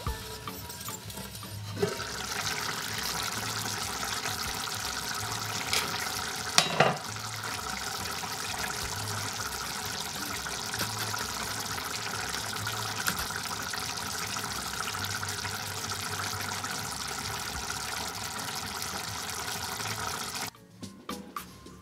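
Thick tomato bolognese sauce bubbling and spluttering at a simmer in an enamelled cast-iron casserole, a steady noise that starts about two seconds in. There is a knock near its start and a louder clunk about seven seconds in.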